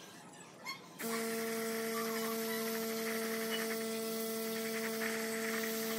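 A small electric motor is switched on and runs with a steady, even hum.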